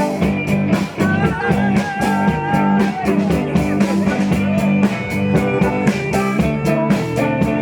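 Band music without vocals: guitars playing over a steady drum beat in an instrumental passage of a country-rock song.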